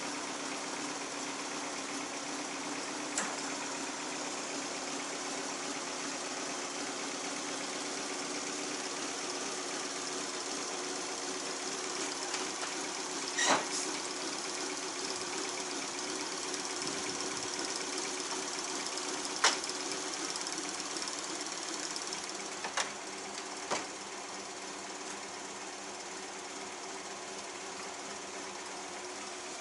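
Toyota AE86's 4A-G four-cylinder engine idling steadily, with five sharp clicks over it, the loudest near the middle.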